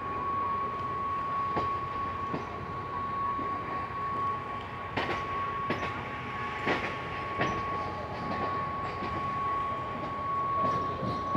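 Mumbai suburban local electric train running along the line, heard from an open coach doorway: a steady rumble with a steady high whine, and wheels clicking over rail joints at irregular intervals, the clicks coming more often near the end.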